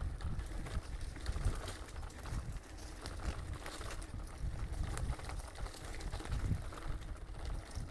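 Mountain bike descending a rocky dirt trail, heard from an on-board camera: uneven low rumble of the tyres and wind on the microphone, with scattered clicks and rattles as the bike bounces over stones.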